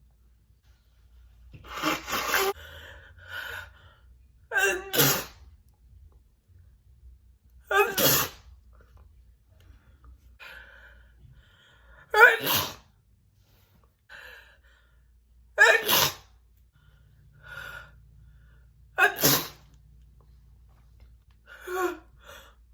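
A woman sneezing over and over: about seven loud, wet, spitty sneezes, roughly one every three seconds, with quieter breathy inhales between them.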